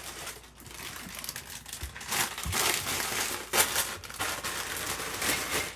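Crinkly packet of corn chips being handled, the plastic crinkling and rustling in irregular bursts, loudest in the middle.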